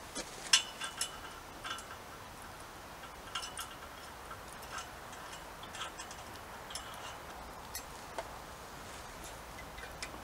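Light metallic clicks and ticks from a steel top guide bracket on a sliding gate post as it is fitted and tightened by hand. There are about fifteen of them at irregular intervals, and the sharpest comes about half a second in.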